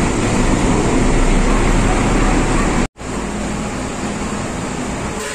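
Heavy truck engines running in a steady, loud rumble inside a ferry's enclosed steel vehicle deck. The sound cuts out for a moment about three seconds in.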